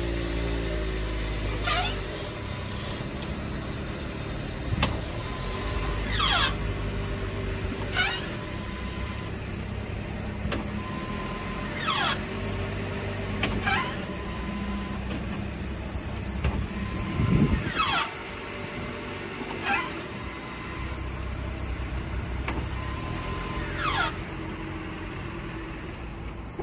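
The electric parking brake at the rear calipers of a 2022 Toyota RAV4 makes short high-pitched squeals that fall in pitch, like dolphin chirps, repeating every couple of seconds over a low hum. This is not the normal whir of the parking brake but a fault in the calipers, which replacing the calipers cured.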